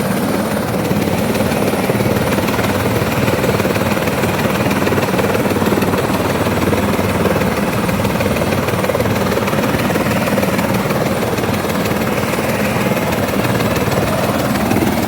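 Helicopter running close by, its rotor and turbine making a loud, steady beating drone that holds level throughout.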